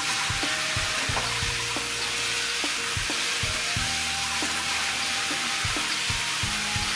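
Fine spray of water from a homemade PVC pipe outlet hissing steadily as it falls onto hands and into a metal basin. Background music with a regular beat plays underneath.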